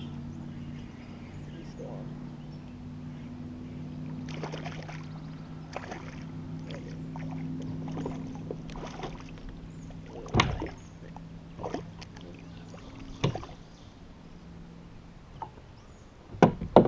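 Fishing gear being handled aboard a plastic kayak while casting and reeling a spinning rod: scattered sharp clicks and knocks, the loudest about ten seconds in and again near the end, over a steady low hum that fades after about twelve seconds.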